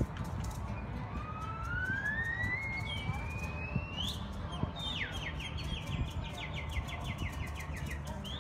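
Distant siren: a slow rising wail lasting about three seconds, then a fast repeated yelp of short falling sweeps.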